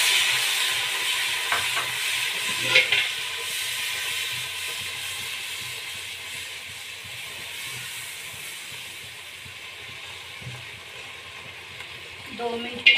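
Water sizzling as it hits spices frying in hot ghee in a pot. The sizzle is loud at first and dies away steadily while the mixture is stirred, with a couple of clicks of the spatula against the pot in the first three seconds.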